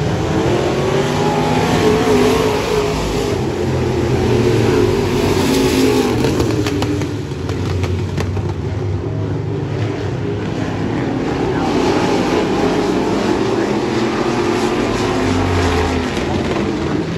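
Several vintage dirt-track stock cars running flat out around the oval, their engine notes rising and falling over and over as they go through the turns and down the straights.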